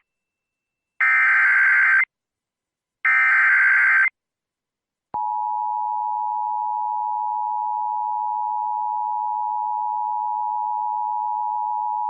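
Emergency Alert System SAME header: one-second bursts of screeching digital data tones repeated with one-second gaps. About five seconds in, the EAS two-tone attention signal starts and holds steady, announcing that a warning message follows.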